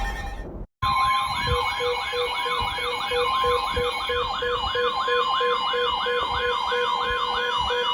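Weather radio alarms sounding for a flash flood warning: several alert sounds layered at once, a fast-sweeping siren tone of about two to three sweeps a second, a steady high alert tone and an on-off beep. One alarm mix cuts off abruptly and, after a brief silent gap about a second in, the new mix starts up and keeps going.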